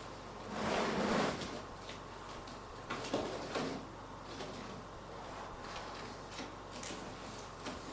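Cardboard packaging being handled: a long sliding scrape about a second in, then shorter rustles and a few light knocks.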